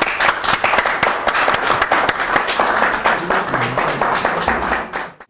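Applause from a small audience, many hands clapping densely, dying away near the end.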